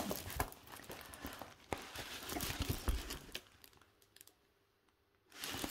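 Clear plastic film on a diamond-painting canvas crinkling as it is handled, with light scattered taps, dying away to near silence for the last second or two.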